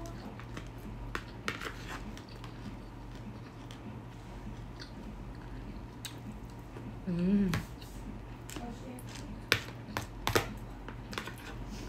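A person eating rice and ground beef: chewing, with a metal fork clicking against the plate a few times, sharpest near the end. About seven seconds in, a short voice sound that rises and falls is the loudest thing.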